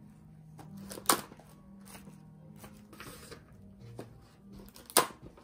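Plastic cling wrap being pulled from its roll and handled, with light crinkling, ticks and two sharp clicks, one about a second in and one near the end, over quiet background music.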